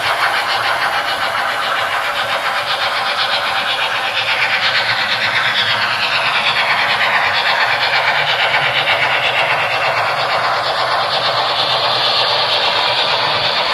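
Model trains running on a miniature railway layout: the steady whirring and fast clatter of a model steam locomotive and its freight cars on the track. A few faint falling whine tones drift through the middle.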